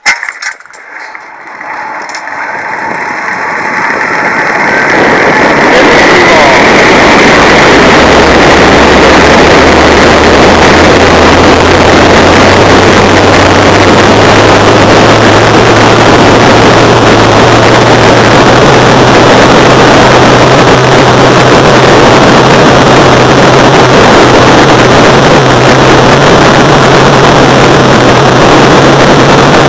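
Wind rushing over the microphone of a rider speeding down a long steel-cable zip line. It swells over the first five seconds as he gathers speed and then holds as a steady, loud rush, with a low hum underneath.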